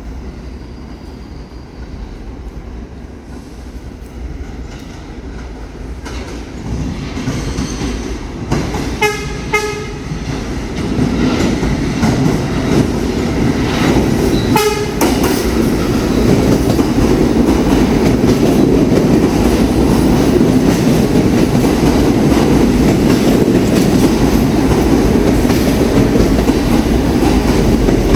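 New York City subway train approaching, sounding its horn in two short toots and then one more a few seconds later. The rumble of wheels on rails then grows to a loud, steady run-by.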